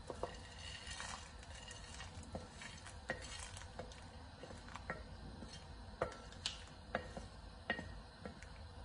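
Spoon tapping and scraping on a ceramic plate as frozen mixed vegetables are pushed off it into a pot of boiling water: light, scattered clicks at irregular intervals over a faint low rumble.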